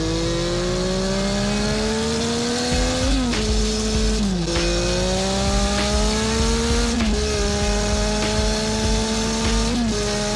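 Vehicle engine accelerating through the gears: the engine note climbs slowly, then drops sharply at each of four gear changes.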